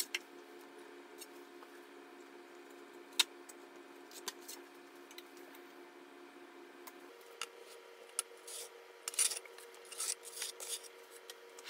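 A notched trowel scraping and combing tile adhesive across a wall in short strokes, the scrapes bunched in the second half, over a faint steady hum.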